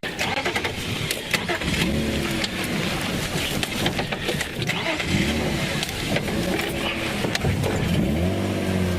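Safari vehicle's engine revving up and down three times as it is driven slowly forward over rough ground, with rattles and knocks from the vehicle.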